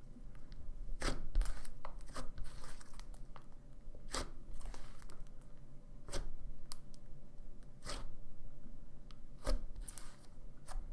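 Thick slime being worked by hand, stretched and pulled apart, with a sharp pop about every one to two seconds and short tearing crackles between them.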